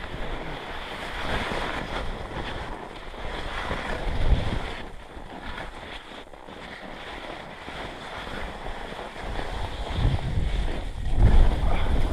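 Wind rushing over an action camera's microphone as a skier descends fast, with skis swishing through deep powder snow. Heavier low gusts buffet the microphone about four seconds in and again over the last couple of seconds.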